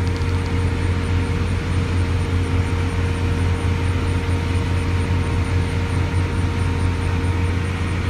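Steady low mechanical hum, like a motor or engine running, with a few faint steady tones above it and faint high pulses about three times a second.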